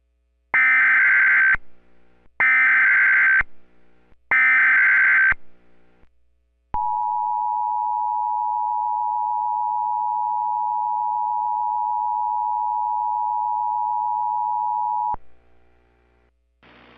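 Emergency Alert System alert: three short bursts of SAME header data tones, about two seconds apart, then a steady attention tone that holds for about eight seconds and cuts off.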